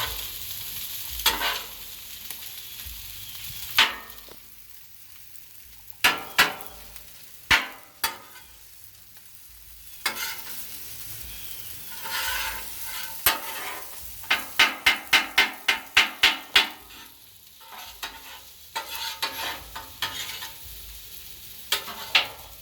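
Stir fry and rice sizzling on a Blackstone flat-top griddle while being mixed, with metal spatulas scraping and knocking on the steel plate. There are scattered sharp clacks and a quick run of about ten taps in the middle.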